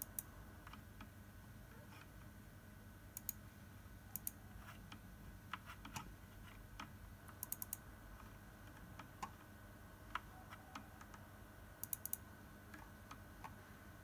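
Computer mouse button clicks: scattered single clicks and quick double and triple clicks, with a faint steady hum underneath.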